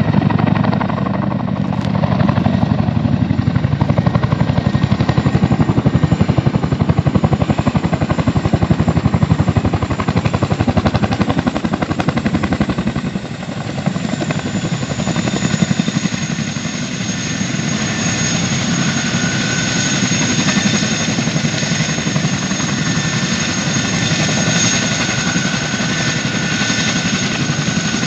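Two CH-47 Chinook tandem-rotor helicopters coming in low and landing, their rotor blades beating rapidly. About halfway through, as they settle in the dust on the ground, a steady high turbine whine rises over the rotor beat and holds.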